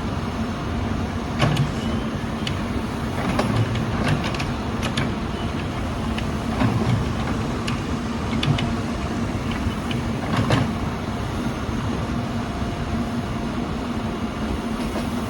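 Backhoe's diesel engine running steadily, with scattered sharp clanks and knocks from the working machine, several in the first half and the last near the middle of the stretch.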